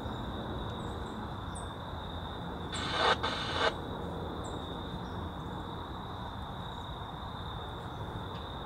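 Distant jet airliner climbing away after takeoff: a steady low rumble, with a thin steady high tone over it. About three seconds in come two short bursts of hiss, one right after the other.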